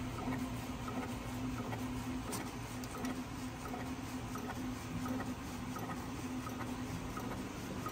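SAGA A3 Pro decal cutting plotter running, its cutting head travelling over a sticker sheet: a steady motor hum with faint, scattered light ticks.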